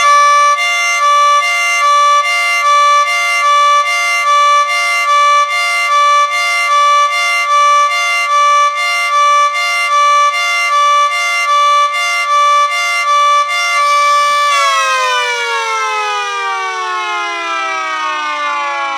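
Miniature model of a Federal Signal 2T22A two-tone siren sounding its hi-lo warble, switching evenly between a high and a low pitch in a cycle a little under a second long. About fourteen seconds in the warble stops and the siren winds down, its pitch falling steadily.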